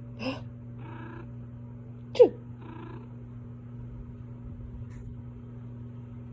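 Two fake sneezes from a person, each answered about half a second later by a cat's short chirp. The second sneeze, a sharp falling sound about two seconds in, is the loudest.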